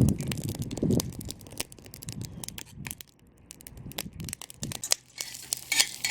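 Plastic packaging crinkling and tearing as it is opened, with scattered clicks and a couple of dull knocks from handling.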